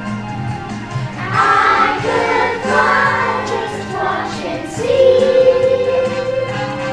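Young children singing together as a group to musical accompaniment, with one long held note about five seconds in.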